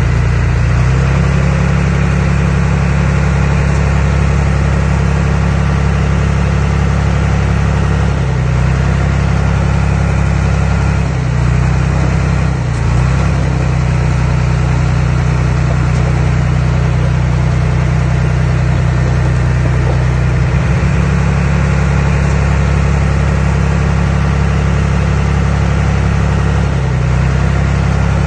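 Diesel engine of heavy earthmoving machinery running steadily and loudly, its note shifting briefly a few times.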